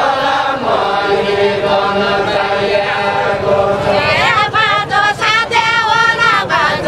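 Unaccompanied deuda folk song: a group of voices chanting long held notes in unison, then from about four seconds in a woman's voice takes over with a higher, wavering line.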